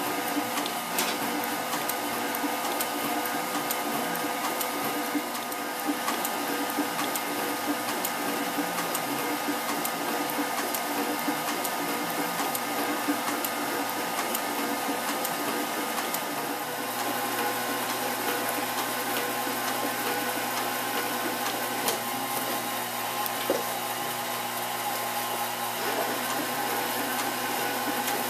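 Cobra Class 4 leather sewing machine running steadily, stitching thick veg-tan leather with heavy thread.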